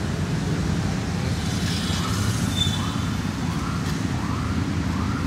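Steady low rumble of street traffic, with faint short rising-and-falling whistles repeating about once a second in the second half.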